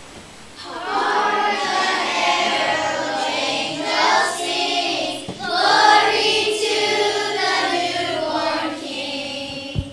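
Children's choir singing together, starting about a second in, with a short break between phrases midway. A low thump sounds just at the end.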